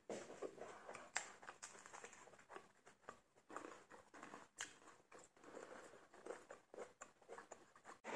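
Faint rustling and crinkling of grocery packaging being handled, with scattered small taps and clicks.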